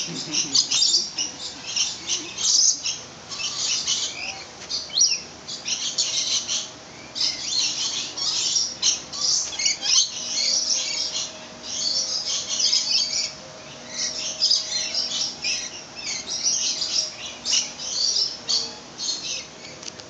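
Many aviary birds calling at once, a dense, unbroken chorus of short, high chirps and calls overlapping each other.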